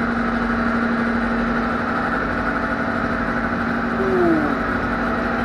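A motor running with a steady, constant hum, with a short falling tone about four seconds in.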